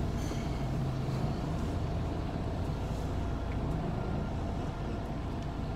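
Semi truck's diesel engine running steadily at low speed as the tractor-trailer pulls forward, heard from inside the cab.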